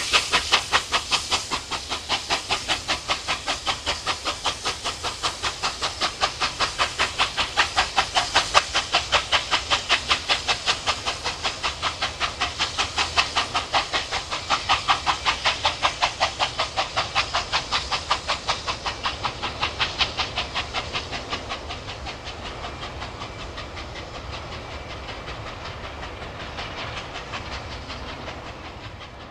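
Steam locomotive 5910, a New South Wales 59 class 2-8-2, hauling a train, its exhaust chuffing in a fast, even beat with steam hiss. After about twenty seconds the beats grow fainter and blur together as the engine moves away.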